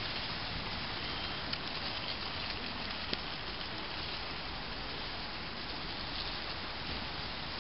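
Steady hiss of rain falling on pavement, with a few faint ticks of drops near the middle and one sharper tick about three seconds in.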